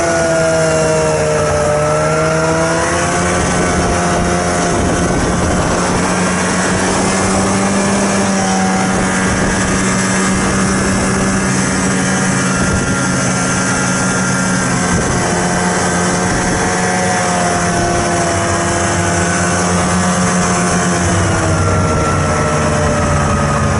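Vehicle engine running steadily while driving, its pitch slowly rising and falling as the speed changes, over constant road and wind noise.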